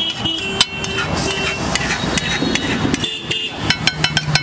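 Metal spoon clinking and scraping on a flat iron griddle as an egg omelette mixture is spread, with a run of quick ringing taps near the end.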